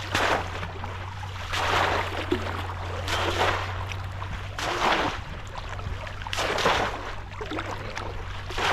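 Water splashing about six times, every second and a half or so, as a bamboo polo trap is plunged into shallow water.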